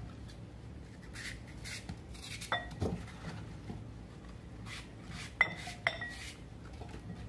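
Apple being sliced by hand with a paring knife over a glass bowl: soft cutting and rubbing sounds, with a few sharp, briefly ringing clinks against the glass, the loudest two close together about five and a half seconds in.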